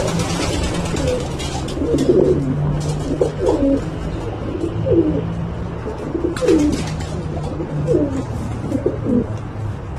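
Racing pigeons cooing, a run of low coos that bend up and down in pitch, roughly one a second, over a steady low hum.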